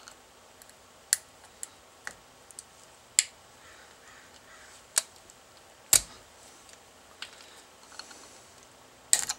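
A small steel screwdriver clicking and scraping irregularly as it picks at the inside of a hole in a 3D-printed plastic part, trying to break loose plastic printed in the bore. The clicks are scattered and uneven, with the sharpest one about six seconds in.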